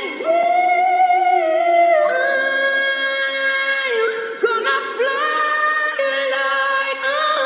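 Unaccompanied a cappella singing, long held notes that shift to a new pitch every second or two.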